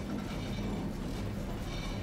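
Tosaden streetcar running on its rails: a steady low rumble of wheels on track with a steady hum from the car's machinery.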